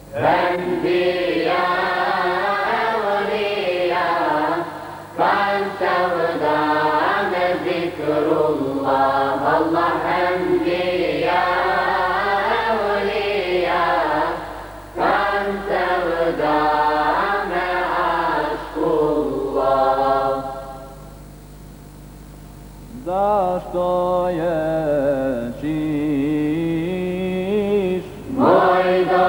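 Male madrasa choir singing an ilahija in long unaccompanied phrases, with brief pauses for breath between them and a quieter stretch about two-thirds of the way through. A steady low hum runs underneath.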